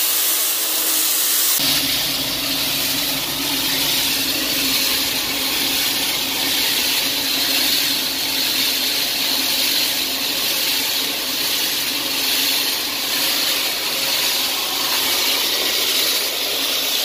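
Homemade grain loader running: grain streaming through a long steel pipe and spraying onto a grain pile, a loud steady hissing rush over a low machine hum. A lower rumble joins about one and a half seconds in.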